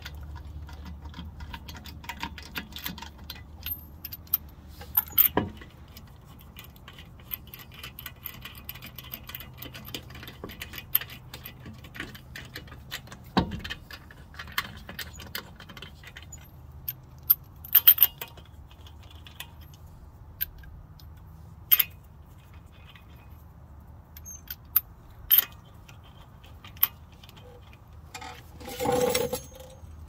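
Scattered metallic clinks and clatter of tools and parts being handled, with one longer clatter near the end and a steady low hum underneath.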